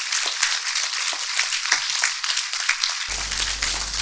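Audience applauding steadily at the end of a talk. About three seconds in, a low steady hum starts abruptly beneath the clapping.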